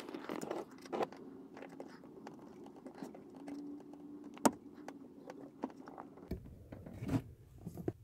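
Faint clicks and scrapes of a coil return spring being hooked onto a steel clutch pedal, with one sharp click about halfway through.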